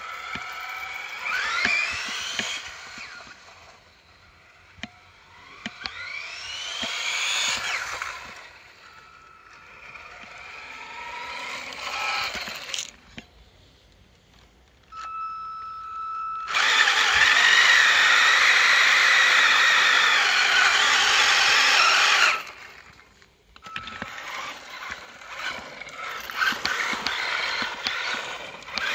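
Electric drive motor and gears of a home-built RC model truck whining as it drives, the pitch rising as it speeds up and falling as it slows, several times. About fifteen seconds in there is a brief steady tone, then the loudest part, a dense steady whine lasting about six seconds.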